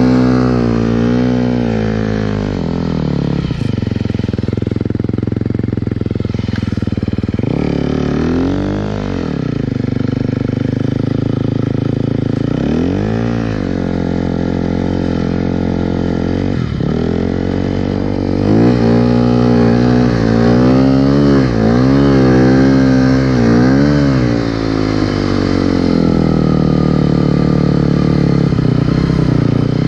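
Engine of a snow machine under load as it is ridden through deep snow, the revs held high. The revs drop and climb again several times, waver quickly for a stretch past the middle, then run steady near the end.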